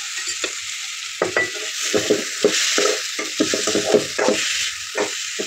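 Mushroom masala sizzling in a metal kadai while a steel spoon stirs it. From about a second in, the spoon scrapes and knocks against the pan over and over.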